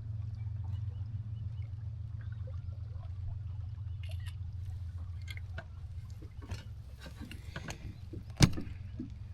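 Steady low rumble with scattered small clicks and knocks of gear being handled in a kayak, and one sharp knock on the hull about eight seconds in.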